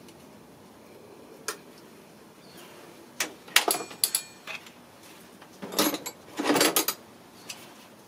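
Metal hand tools clinking and clattering on the engine: a socket ratchet with extension set down on the metal valve cover with a few ringing clinks, then a longer burst of clattering about six seconds in.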